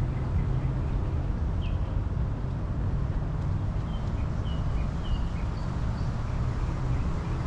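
Steady low outdoor rumble, with a few short, faint high chirps of small birds scattered through it.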